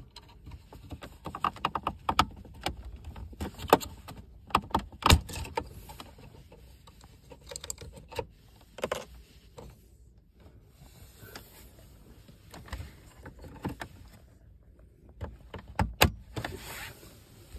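Clicks, knocks and scraping of hard plastic dashboard trim being hooked out with a wire and handled by hand. There is a run of quick clicks about two seconds in, a louder knock about five seconds in and a few sharp clicks near the end.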